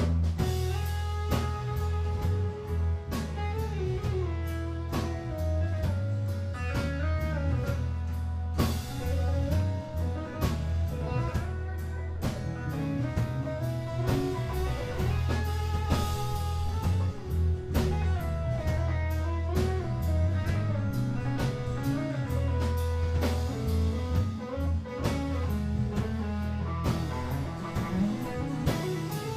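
Live band playing a blues-rock tune with no vocals: an electric guitar picks out a melodic line over an electric bass, strummed acoustic guitar and a steady drum beat.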